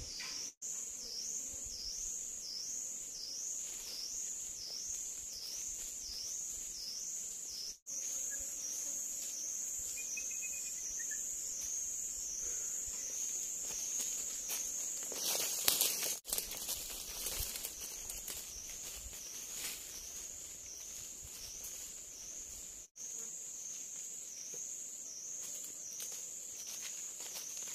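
Forest insect chorus: a high-pitched buzz that swells and fades about one and a half times a second for the first several seconds, then holds steadier. A brief burst of rustling about halfway through.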